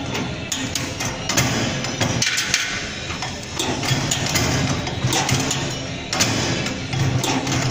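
Tripod turnstile's arm rotor being turned by hand, its metal rotor mechanism clacking and knocking at irregular spacing, about two knocks a second.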